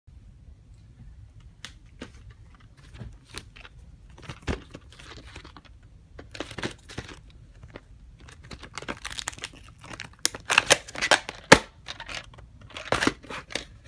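Plastic clamshell VHS cases being handled and turned over: scattered clicks, light knocks and rustling, coming thicker and louder from about ten seconds in.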